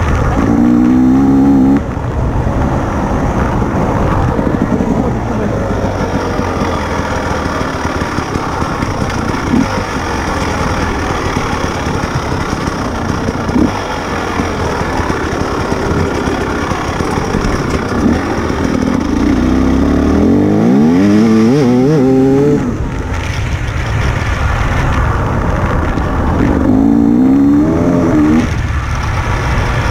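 Enduro motorcycle engine heard onboard, running hard the whole time. Its pitch rises sharply as it revs up under acceleration three times: at the very start, about two-thirds in, ending abruptly, and again near the end.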